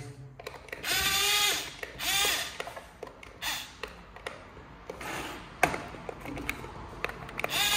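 Small electric gear motor of a toy excavator whining in several short bursts, each rising and falling in pitch, with gear clicks between, as the upper body swivels on its refitted gears and drive chain; the swing works again but weaker than before.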